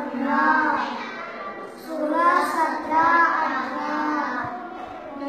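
A child's voice chanting in a sing-song way, in phrases of about a second each: counting aloud while working out a times table.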